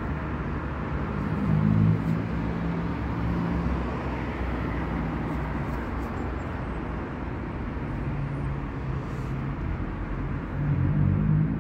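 Steady low rumble of a motor vehicle's engine, with a hum that swells louder about two seconds in and again near the end.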